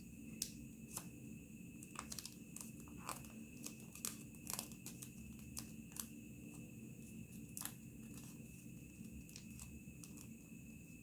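Origami paper handled and folded by hand: faint crinkling and short, irregular rustles of creasing paper, busiest in the first half.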